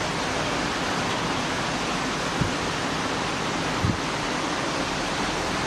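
Steady rushing water, a loud even wash of noise, with two brief dull low bumps about two and a half and four seconds in.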